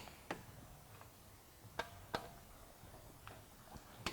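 Torque wrench clicking during final tightening on the wheel: a few faint, sharp single clicks, unevenly spaced.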